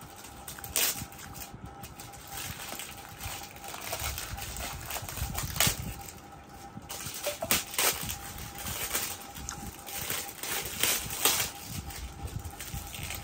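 Gift wrapping paper crinkling and tearing as it is pulled off a box of sweets, in irregular rustles with sharper rips now and then.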